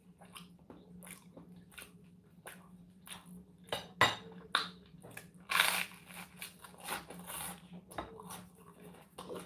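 Someone eating toast: crisp bites and chewing crunches in an irregular run of short clicks, loudest about four and six seconds in. A faint steady low hum runs underneath.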